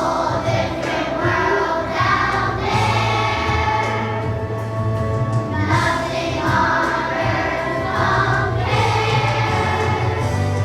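A choir of young children singing a song together over instrumental accompaniment, in phrases of a second or two.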